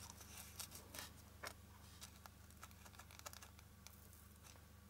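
Near silence with faint, scattered small clicks and rustles from hands handling satin ribbon and pinning it into a foam ball.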